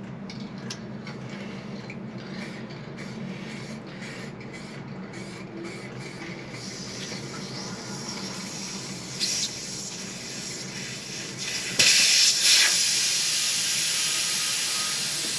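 Paint spraying: a hiss of spray begins about six seconds in, with a short louder burst a few seconds later and a longer, louder burst near the end.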